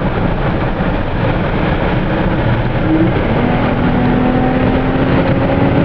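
Car driving at speed, heard from inside the cabin: a steady mix of engine and tyre and road noise, with a faint engine tone coming in about halfway through and climbing slowly in pitch.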